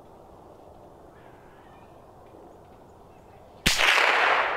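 A single sharp .22 rimfire rifle shot from a Ruger 10/22 about three and a half seconds in. It is followed by a noisy tail that dies away over about a second.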